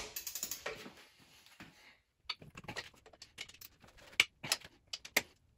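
Long-handled ratchet loosening the cylinder head bolts on a Ford 4.6-litre four-valve DOHC Cobra V8: a sharp knock at the very start, then irregular ratchet clicks from about two seconds in as the handle is worked back and forth.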